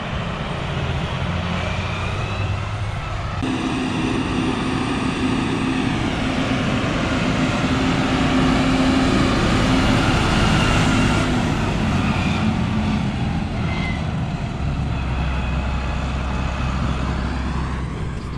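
Diesel engines of John Deere farm tractors running as the tractors drive along and pull in. The sound changes abruptly about three seconds in and again near the end.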